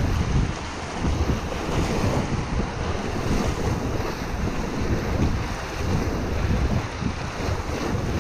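Whitewater rapid rushing and churning around an inflatable packraft, with paddle strokes splashing and water slapping the hull. Wind and spray buffet the camera's microphone, giving a rough, surging low rumble.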